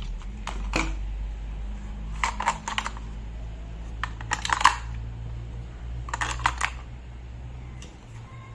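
Packaging being cut and handled during an unboxing: clusters of sharp clicks and crackles in four short bursts, over a steady low hum.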